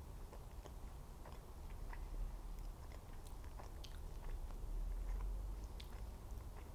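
Fingers pulling apart a cream puff glazed with pink chocolate, with many small crackles and clicks from the pastry shell and glaze, then biting into it near the end. A low steady hum lies under it.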